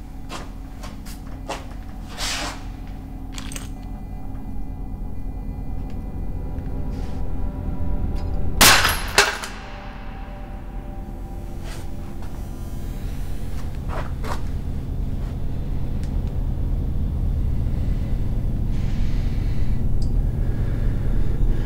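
Film soundtrack drone: a steady low hum with scattered sharp clicks, one loud sudden hit about nine seconds in followed by a hiss that falls away in pitch, then a low rumble that swells toward the end.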